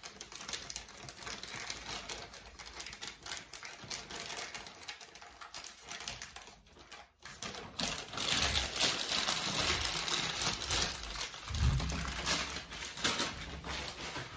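Crinkling plastic and small clicks from a disposable piping bag being handled as its end is snipped off and an icing tip is pushed in. The sounds get louder and busier about eight seconds in, with a couple of low thumps near twelve seconds.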